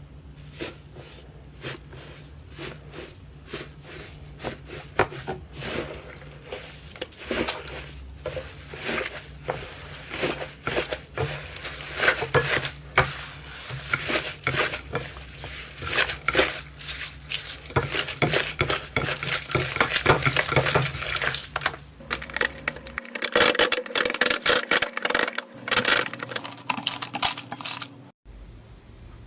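Hands squeezing, pressing and poking slime, making a close, steady stream of sticky clicks and crackles that grows busier and louder about halfway through.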